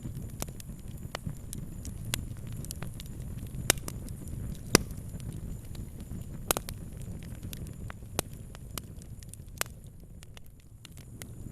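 Fire crackling: irregular sharp pops and snaps, a few much louder than the rest, over a steady low rumble of the flames.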